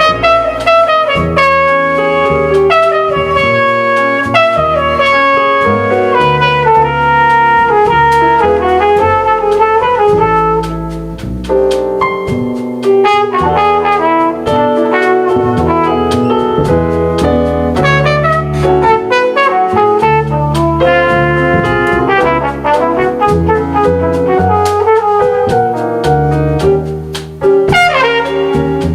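Jazz quartet playing: a brass horn carries the melody over piano, double bass and drums, with cymbal and drum strokes throughout.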